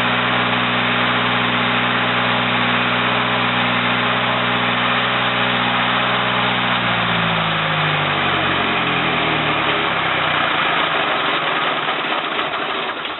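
Onan 30 kW generator's Ford industrial diesel engine running at a steady speed, then shut down: about halfway through its pitch drops as it winds down, and it fades out near the end.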